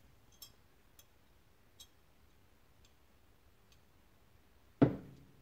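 Light metal clicks of a screwdriver bit being worked against a tight screw in a revolver's steel frame, then one loud, sharp knock with a short ring near the end.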